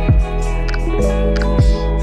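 Background music: sustained notes that change chord about a second in, over a steady beat of deep thuds.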